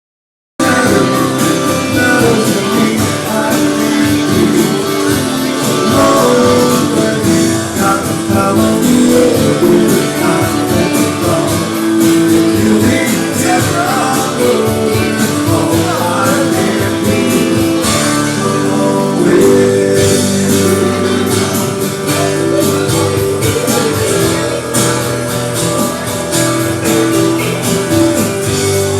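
Music: a song with guitar, starting about half a second in and running on at an even level.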